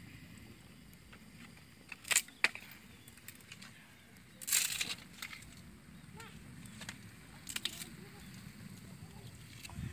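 Wood fire burning under a pot of mussels, with a few sharp pops and crackles and a brief rustle about halfway through, over a low steady rumble.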